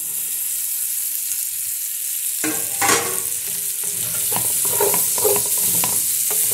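Fried shrimp tipped back into a pot of onion and red and green peppers frying in oil, which sizzles steadily. From about two and a half seconds in, a spatula knocks and scrapes against the pot in repeated short strokes as everything is stirred.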